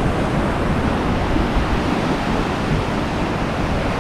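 High surf breaking and washing over a rocky shoreline: a steady rush of waves.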